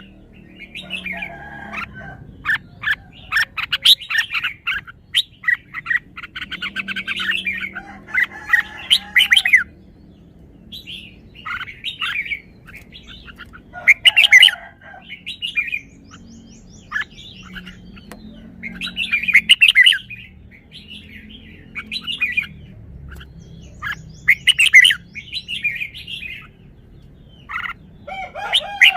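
Red-whiskered bulbul singing: a series of short, bright warbling phrases a second or two long, repeated with brief pauses between them, the first few seconds full of quick rapid-fire notes.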